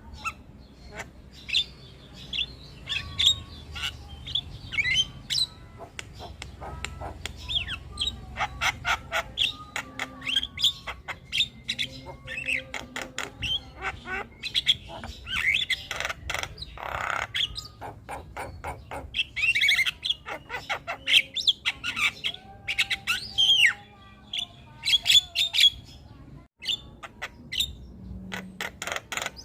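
Javan myna singing in a busy, chattering run of sharp clicks, squawks, chirps and short whistles.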